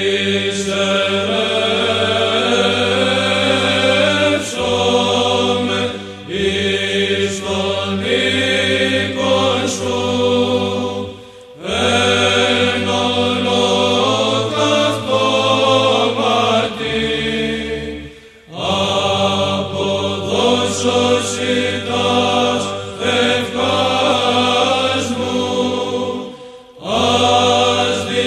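Male monastic choir chanting Byzantine psalmody in Greek in the plagal second mode: a melody sung over a steady low held drone (the ison), in long phrases broken by short pauses about 11, 18 and 27 seconds in.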